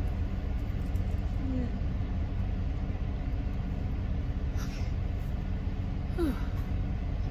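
Steady low road rumble and engine hum inside a moving car's cabin, with a few faint short high sounds over it.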